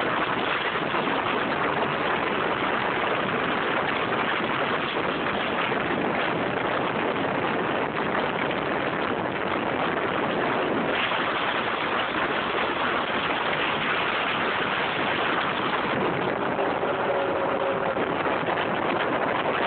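Steady rush of wind on the microphone from a Modenas Elegan scooter riding at road speed, with the scooter's running engine underneath.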